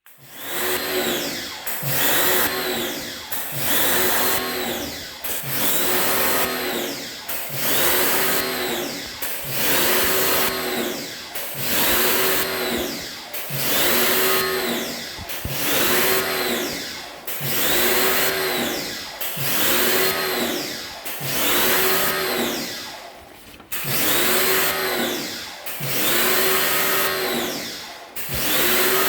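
Motor of a pressure-washing machine spraying water through an air conditioner's blower fan, its pitch rising and falling in a steady cycle about every two seconds.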